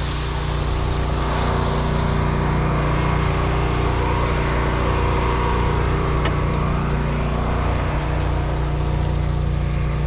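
Fire hose stream spraying water into a burning skid steer's engine compartment, a steady hiss over the even drone of an engine running at constant speed.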